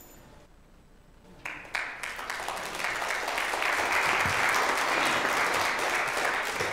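Congregation applauding. It begins about a second and a half in after a short quiet, swells to a steady level, then tapers off near the end.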